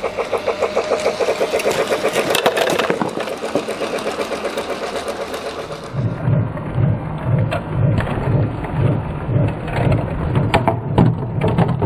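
Battery-powered Lionel Polar Express toy locomotive running on plastic track, its speaker playing a rhythmic chugging sound effect. About six seconds in, the sound changes to a deeper, regular chug of about two beats a second.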